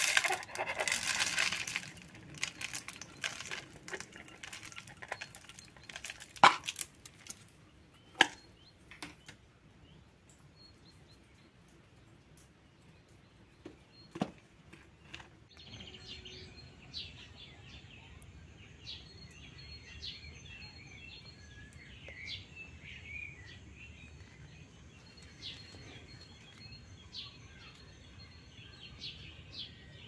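Birdseed poured from a bowl into a plastic bottle-bottom feeder tray: a rattling hiss of falling grain for about two seconds, then a few sharp clicks and knocks. From about halfway there is an outdoor background hiss with small birds chirping faintly.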